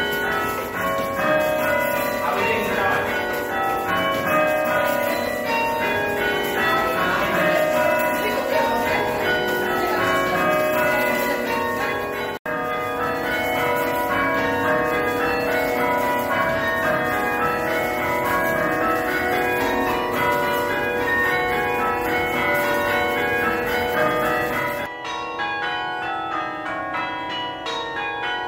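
Church tower bells chimed by hand from a lever chiming frame: a steady run of struck bell notes one after another, each ringing on under the next. There is a brief break about twelve seconds in, and near the end the bells sound duller.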